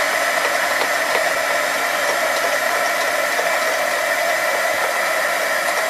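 Heat gun running steadily, blowing hot air with a steady motor whine under the rush, warming melted crayon wax to a workable softness.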